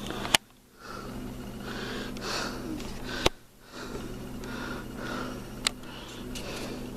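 Close breathing and sniffing near the microphone over a steady low electrical hum, with a few sharp clicks as the camera is handled to zoom in. The sound cuts out briefly twice.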